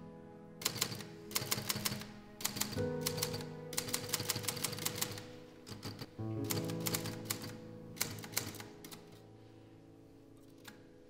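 Manual typewriter keys clacking in several quick bursts of rapid strikes, over soft sustained music chords that fade toward the end.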